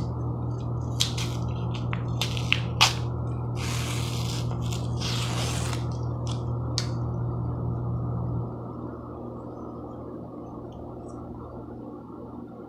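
Paper wrapper being torn and peeled by hand off a refrigerated dough can: a few crinkles and clicks, then two longer rips about four and five seconds in. A steady low hum underneath drops away about eight seconds in.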